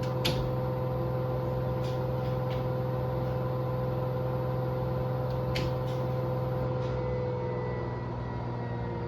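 Washing machine spinning at maximum speed, a steady hum with a high whine and a few sharp clicks. About seven seconds in, the whine cuts out and the drum starts to slow down, its pitch and loudness easing off as the spin ramps down.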